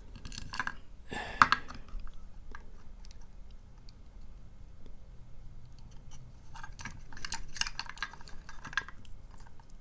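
Small metal clicks and scrapes of a Sesamee round-body padlock being taken apart by hand with tools. There is a sharp click about a second and a half in, then a quick run of rattling clicks near the end.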